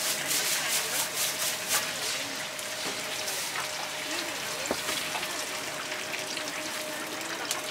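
Hot oil sizzling in a deep fryer: a steady crackling hiss, busiest in the first two seconds, with a faint steady hum underneath.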